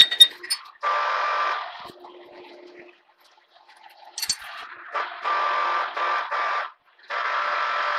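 Horizontal boring mill's power traverse whining in three short jogs of about a second or more each, starting and stopping abruptly, as a dial indicator is swept across the angle plates to indicate them in. A light metal clink about four seconds in.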